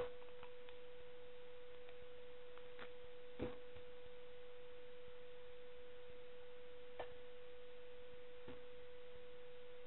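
A steady, pure electronic tone held at one pitch, with a couple of faint clicks, one about three and a half seconds in and one about seven seconds in.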